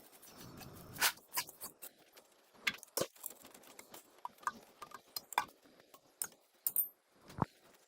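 Irregular clicks and light knocks of hand tools and metal parts being handled while an old generator is worked on, with sharper knocks about a second in, about three seconds in and near the end.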